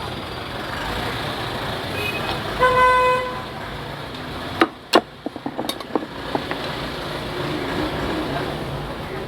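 Steady road traffic with a short vehicle horn toot about three seconds in. Around halfway come two sharp loud knocks, then a quick run of lighter taps and clicks.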